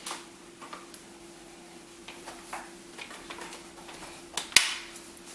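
Light plastic ticks from a pushchair seat unit being handled, then one sharp, loud click about four and a half seconds in as the seat snaps into place on its frame adapters.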